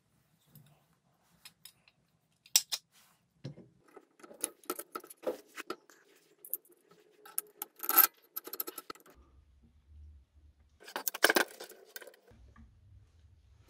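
Metal parts of an electric scooter's rear wheel assembly (wheel hub, washers, axle bolt and swing arm) clinking and knocking as they are handled and fitted together by hand. Scattered small clicks, with a few sharper knocks, the loudest about 8 seconds in and again around 11 seconds.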